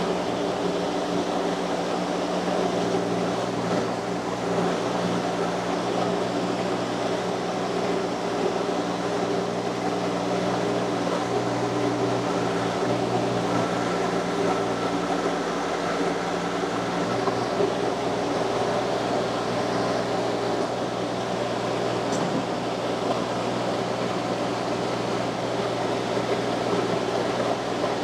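Mini skid steer loader engine running steadily, with a constant pitch throughout.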